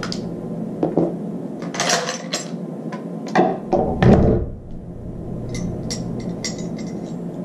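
AKM rifle being field-stripped: steel parts clack and knock as the dust cover, recoil spring and bolt carrier with its gas piston come off. The loudest sound is a heavy thunk about four seconds in, as the rifle is set down on the wooden table. Lighter metal clicks follow near the end as the bolt carrier is handled.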